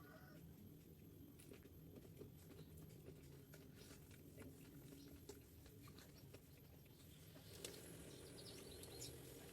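Near silence: a low background hum with scattered faint clicks, and a few faint chirps near the end.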